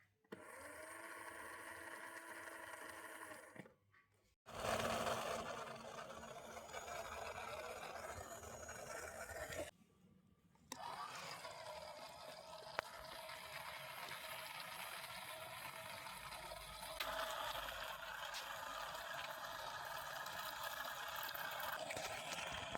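Small electric motor of a homemade cardboard RC toy truck running, with a scraping rattle, in a few cut clips separated by short silences.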